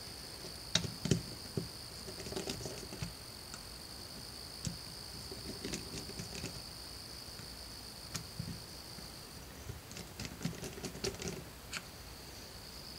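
Small irregular clicks and light scrapes of a T15 Torx screwdriver turning screws into the plastic rear motor cap of a cordless impact driver, with the tool body handled and shifted on the bench.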